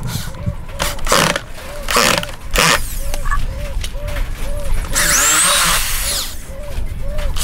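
Corded electric drill boring into dry, weathered stump wood in short runs, the bit grinding through the wood, with one longer run about five seconds in.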